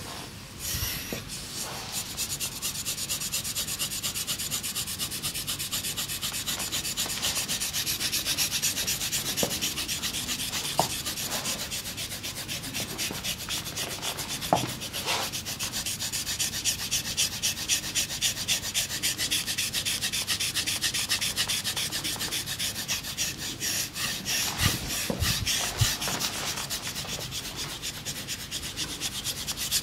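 Hands rubbing briskly and rhythmically over skin in a massage, many quick strokes a second, with a few soft knocks partway through.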